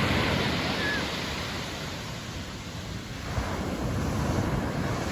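Pacific Ocean surf washing onto the beach, with wind buffeting the microphone. The wash eases around the middle and swells again near the end.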